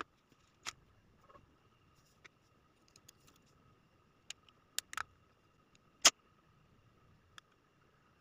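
Scattered sharp plastic clicks and snaps as a correction tape dispenser's plastic casing is handled and pressed shut, the loudest about six seconds in. A faint steady high whine runs underneath.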